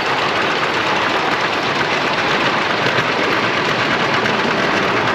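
Miniature steam railway train running along its track, heard from an open passenger car: a steady, rapid mechanical clatter of the wheels and the working steam locomotive.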